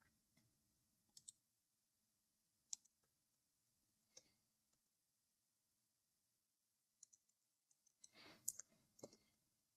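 Near silence broken by faint, scattered clicks of a computer mouse, single or in pairs, with a short rustle and a few more clicks near the end.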